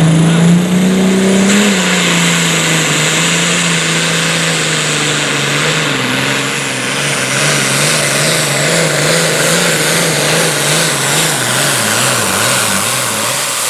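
John Deere Pro Stock pulling tractor's turbocharged diesel engine at full throttle, pulling a weight-transfer sled. The engine note climbs for about the first second and a half, then slowly sags as the sled loads it down, and wavers in the last few seconds.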